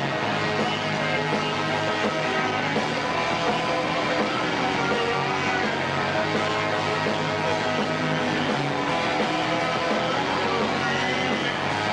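Rock band playing live: electric guitars and drums playing a fast rock song.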